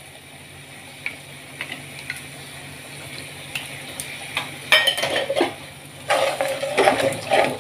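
Spice paste sizzling in an aluminium kadai, with a few light clicks. About five seconds in, a splash of water is poured into the hot pan and a slotted steel spoon scrapes and stirs the masala against the metal.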